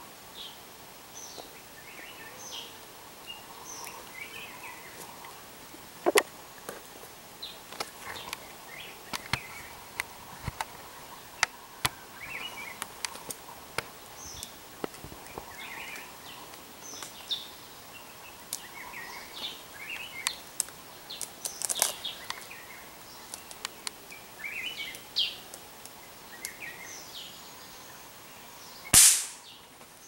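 Forest birds calling throughout, short chirps and whistles with scattered sharp clicks. About a second before the end comes one loud, sharp bang, a single shot from the long-barrelled hunting gun aimed up into the canopy.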